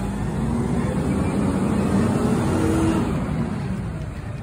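Natural-gas engine of a Waste Management recycling truck running and accelerating as the truck pulls away. It rises in pitch and loudness, peaks about two to three seconds in, then eases off.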